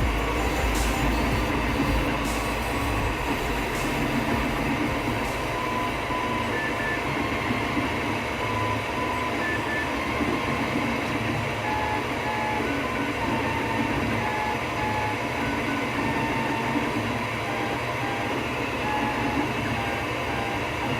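Wanhao i3 3D printer at work: a steady hum of fans and motors, with short stepper-motor whines that jump in pitch as the print head and bed move.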